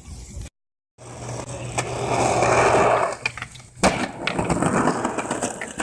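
Skateboard wheels rolling on concrete, swelling louder as the board passes, then a sharp clack of the board hitting the ground about four seconds in, followed by lighter clicks and more rolling.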